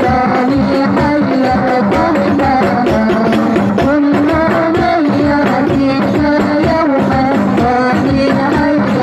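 Sholawat, an Islamic devotional song, sung by young women's voices through microphones, with a busy hand-drum rhythm underneath.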